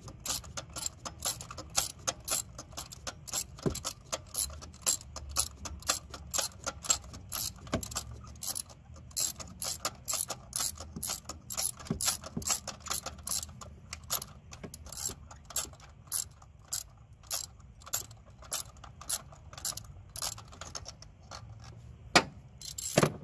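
Hand ratchet with a 5/8-inch spark plug socket clicking back and forth in steady, even strokes, about three clicks a second, as a spark plug is worked loose. There is a louder single clack near the end.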